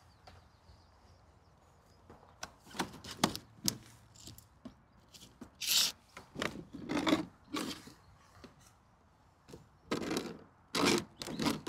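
Clear rigid plastic garden cloche sections being handled and set in place over a soil bed: scattered scrapes, rubs and light knocks, starting after a couple of quiet seconds and growing louder in the second half.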